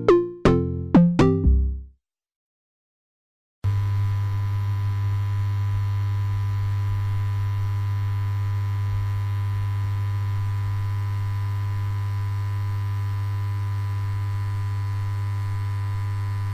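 A quick run of short, bright synthesizer notes, a logo jingle, ending about two seconds in. After a second or so of silence, a steady low electronic drone with a constant hum comes in and holds unchanged.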